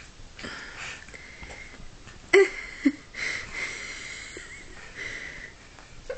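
A kitten scuffling with a plush toy on fabric: soft rustling and pawing, with two sharp louder sounds about half a second apart a little over two seconds in.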